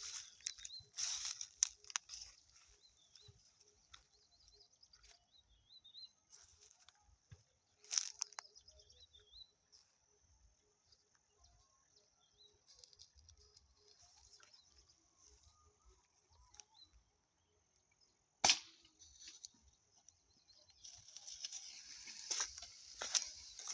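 A single sharp air rifle shot about three-quarters of the way through, over soft bird chirping, with a few lighter clicks before it and rustling near the end.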